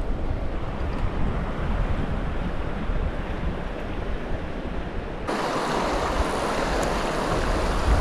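Rushing river water, a steady hiss with wind rumbling on the microphone. About five seconds in the sound changes abruptly: the low wind rumble drops away and the water hiss becomes brighter and louder.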